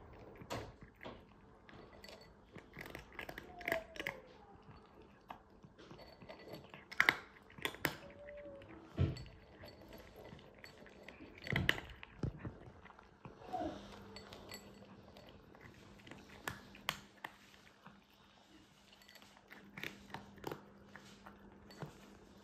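Tabby cat eating dry kibble from a glass bowl: irregular sharp crunches and clicks as it chews.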